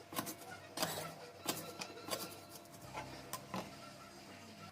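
Irregular sharp knocks and clicks, about eight in four and a half seconds, over soft background music.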